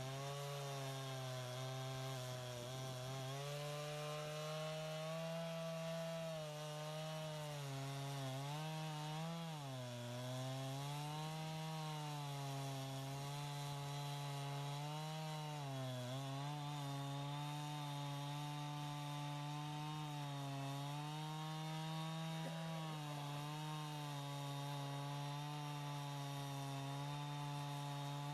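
Stihl MS 251 C-BE chainsaw's 45.4 cc two-stroke engine held at high revs while cutting wood. Its steady whine dips in pitch briefly a few times as the chain bogs under load.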